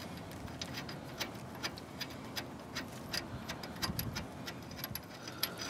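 Faint, irregular small metallic clicks and ticks as bolts are threaded in by hand, fastening a driveshaft U-joint's bearing caps to the front axle pinion yoke.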